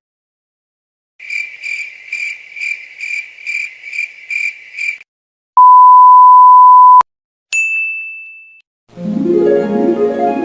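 A string of stock editing sound effects: a high chirping beep pulsing about two or three times a second for some four seconds, then a loud steady censor bleep tone for about a second and a half, then a single high ding that rings away. Near the end, plucked harp-like music begins.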